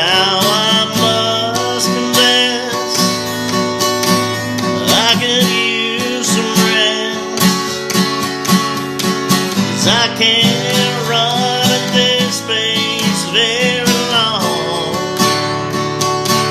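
Acoustic guitar strummed steadily, with a lead melody line over it that bends and wavers in pitch.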